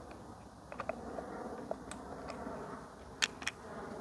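Faint steady buzzing hum, with a scatter of light clicks and ticks and two sharper clicks about three seconds in.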